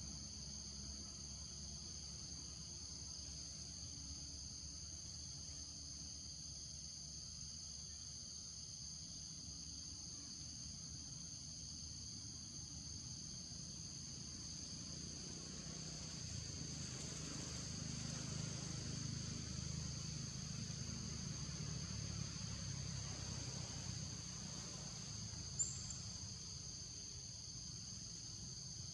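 Steady high-pitched drone of an insect chorus, two even tones held without a break. A low rumble swells for several seconds past the middle, and one short high chirp sounds near the end.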